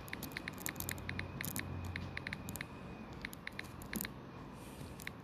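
Quick, irregular taps of typing on a smartphone's on-screen keyboard, several a second.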